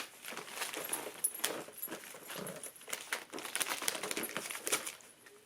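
Wrapping paper crinkling and tearing in a string of irregular rustles and rips as a dog tears into a wrapped present.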